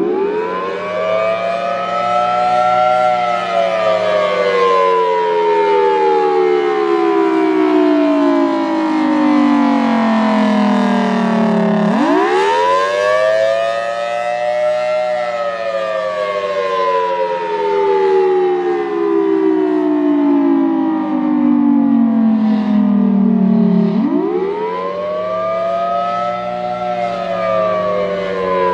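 Federal Signal Thunderbolt 1003 outdoor warning siren sounding the attack signal, really loud: its pitch sweeps up quickly to a peak, then slides slowly down, repeating about every 12 seconds, with three rises in all. A steady low hum runs underneath.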